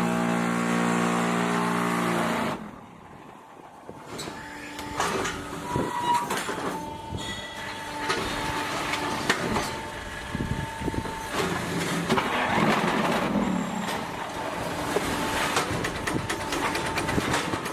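Concrete block making machine running: a steady hum cuts out suddenly about two and a half seconds in, followed by irregular knocks and clanks with some steady tones.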